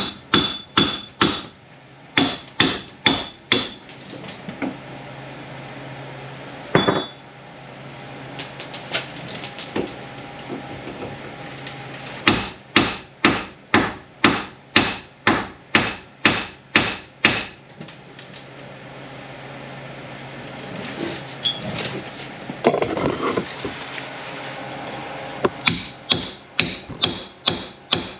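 Hammer blows on metal, coming in runs of about three sharp ringing strikes a second with short pauses between runs, as a seized front wheel hub bearing assembly is beaten on to free it.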